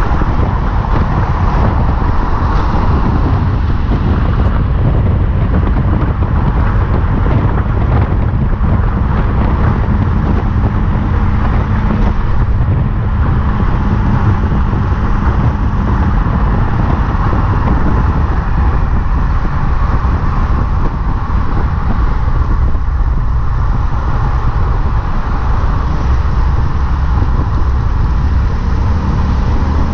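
Loud, steady road noise from a moving vehicle, picked up by an exterior-mounted camera: tyre and wind rumble with a low drone and no sudden events.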